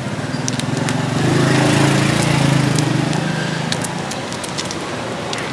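Minced-pork omelette deep-frying in a wok of hot oil, with sharp crackles and spits throughout. A passing engine swells to the loudest sound about a second in and fades out by about four seconds.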